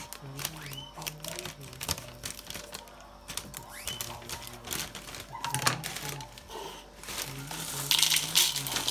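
Clear plastic bag of chocolate cereal flakes crinkling and rustling as it is handled, with many small sharp ticks. Near the end the flakes pour from the bag into a plastic bowl in a louder rattling rush.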